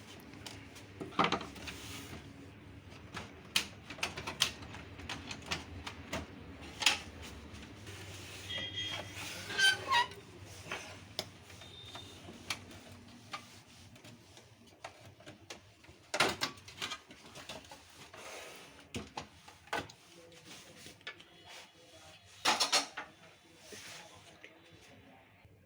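Irregular clicks, taps and knocks of plastic and metal parts being handled, as when a Canon LBP 2900 laser printer is worked on or taken apart, with louder knocks now and then.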